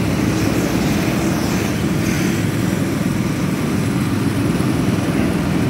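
Several go-kart engines running at speed on the track, a steady drone.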